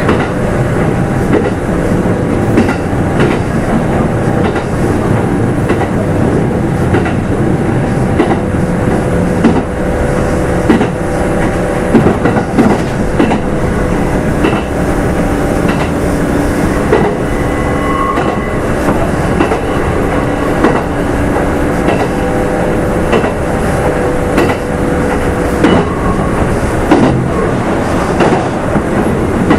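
Running sound inside a Kintetsu 2800 series electric train's motor car at speed: the traction motors hum at a steady pitch over the wheel and track noise, with the clack of rail joints now and then.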